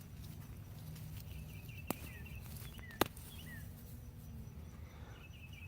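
Faint shuffling of potatoes being dug out of garden soil, with two sharp clicks about two and three seconds in. Short high chirps sound in the background.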